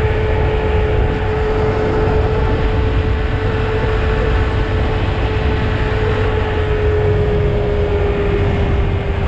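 Honda Monkey's small single-cylinder four-stroke engine running at a steady cruising speed, its note easing slightly lower near the end. Wind rushes over the microphone underneath.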